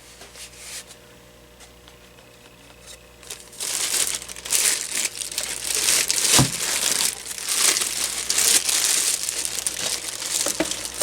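Plastic packaging crinkling and rustling as parts are handled and pulled out of the box, starting a few seconds in and continuing to the end, with a single light knock about midway.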